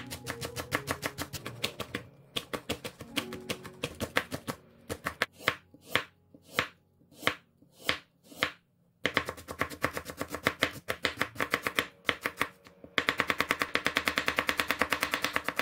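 Kitchen knife chopping vegetables on a wooden cutting board. It starts with quick rapid strokes through green onion, slows to single cuts through a carrot around the middle, then ends with a fast, louder run of chops through red onion.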